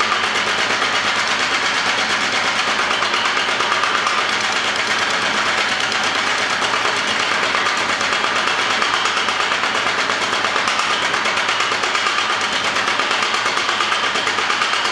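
Homemade power hammer running steadily, its head beating in rapid, even strokes.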